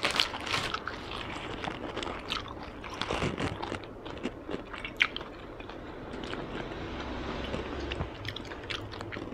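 Close-up mouth sounds of chewing a Vietnamese fresh spring roll (rice paper with shrimp, pork and herbs), with many small, irregular wet clicks.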